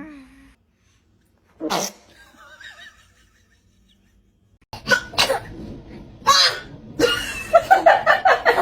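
Baby sneezing: one short sharp sneeze, then after a pause several more sneezes. Near the end comes a quick run of pulsed vocal sounds.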